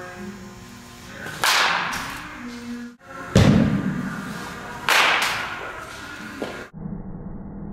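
Baseball bat striking pitched balls in an indoor batting cage: three sharp cracks about a second and a half apart, each ringing briefly in the room.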